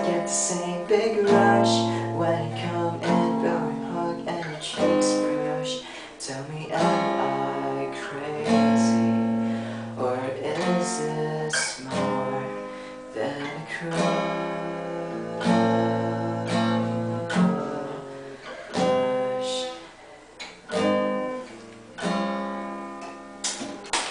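Acoustic guitar being strummed in a run of chords, each stroke ringing on until the next. It is the instrumental close of the song after the last sung line.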